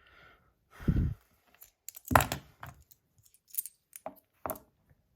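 Small metal parts of an opened fidget spinner clinking and knocking as they are handled: a dull thump about a second in, a louder knock just after two seconds, then several sharp clicks.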